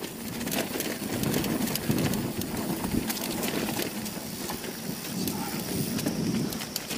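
Polygon Siskiu T7 full-suspension mountain bike riding fast down a steep dirt singletrack: steady tyre rolling noise on loose dirt with a constant rattle of small clicks from the bike's chain and parts over the rough ground.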